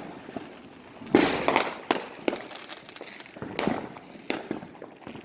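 Fireworks going off in an irregular string of sharp bangs and pops, the loudest about a second in.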